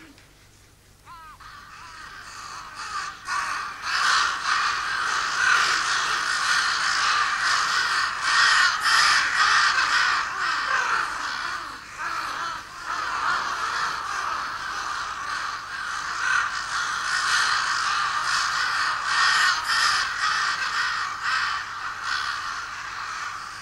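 A large flock of crows cawing together: a dense clamour of overlapping calls that builds up over the first few seconds and then holds.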